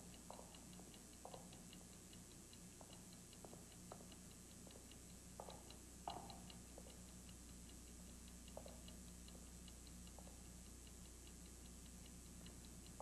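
Near silence: a faint steady hum under light, evenly spaced ticking about four times a second, with a few soft knocks scattered through.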